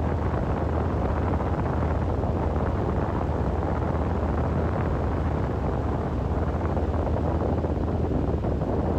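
Strong blizzard wind blowing steadily, a constant rushing noise with a deep rumble of wind on the microphone.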